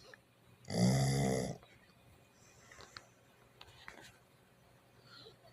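Pit bull snoring: one loud snore about a second in, lasting just under a second, then a few seconds of quiet with faint small clicks.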